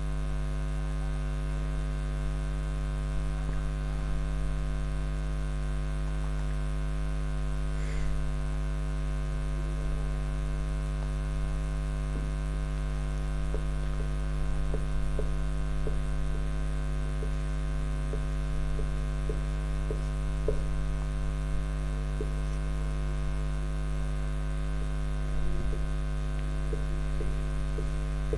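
Steady electrical mains hum, a low tone with evenly spaced overtones. Faint short ticks of a marker pen writing on a whiteboard come through it now and then.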